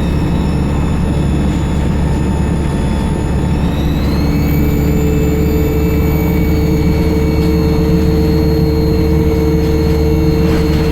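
ADL Enviro 200 bus engine running under way with a loud, high-pitched turbocharger whistle over a low rumble; the whistle climbs in pitch about four seconds in and then holds steady.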